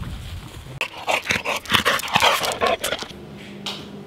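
Wind rumbling on the microphone, then a dog barking in a quick, irregular run of short barks for about two seconds, starting about a second in.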